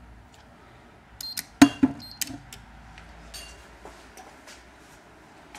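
A short flurry of sharp clicks and knocks, the loudest a single sharp knock, about a second and a half in.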